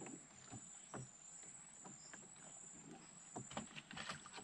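Quiet riverside ambience: a steady high-pitched insect drone, with scattered faint clicks and soft knocks.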